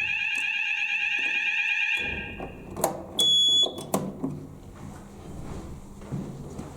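Fire alarm sounders go off in a steady, slightly warbling tone during a weekly fire alarm test, then cut off after about two and a half seconds. About a second later a short high beep sounds, with a few clicks around it.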